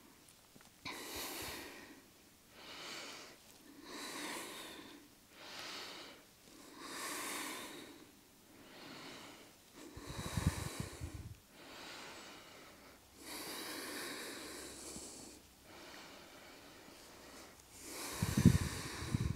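A woman's breathing close to a clip-on microphone: about a dozen soft, hissing breaths, one every second or two. Around ten seconds in, and more loudly near the end, a short low rustle of the microphone rubbing on clothing as she moves.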